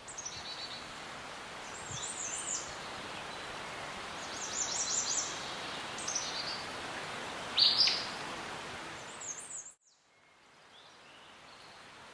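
Small birds chirping and trilling in short high phrases over a steady outdoor background hiss. Near the end the sound cuts out suddenly, then a quieter background resumes.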